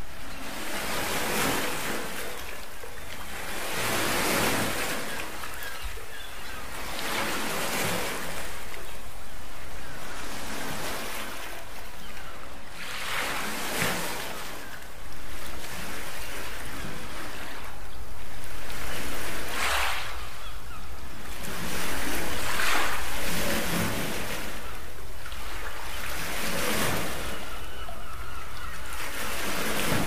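Small sea waves washing up onto a sandy beach, the surf hiss swelling and fading in irregular surges every few seconds over a steady low rumble.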